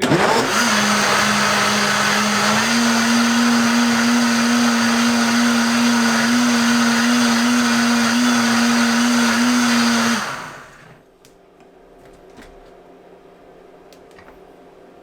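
Vitamix 7500 blender motor running under heavy load through an extra-thick green smoothie. Its pitch steps up slightly about two and a half seconds in. It is switched off about ten seconds in and winds down.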